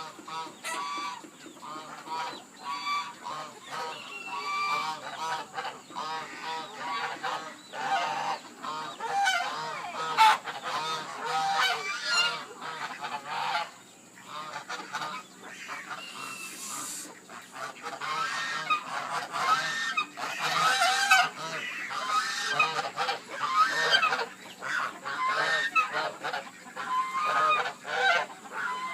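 A flock of domestic geese honking over and over, many calls overlapping, with other poultry calling among them.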